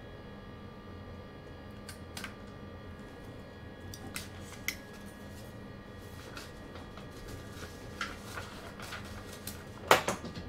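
Inside a passenger train's driving cab: a steady hum with several steady whining tones, broken by scattered metallic clicks and clinks that come thicker towards the end, with a sharp clank near the end.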